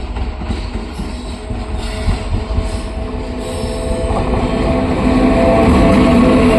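Electric-hauled passenger train approaching on the track, its rumble growing steadily louder, with steady humming tones joining about four seconds in.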